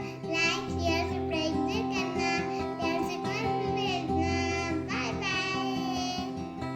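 Background music with a high singing voice over steady held chords, stopping abruptly right at the end.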